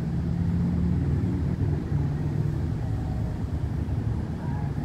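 Engine of an SUV driving slowly along the sand close by, a low steady hum.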